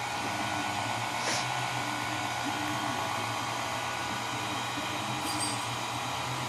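Motor-driven pasta machine running with a steady hum as dough is fed through its rollers or cutter, with a short tick about a second in.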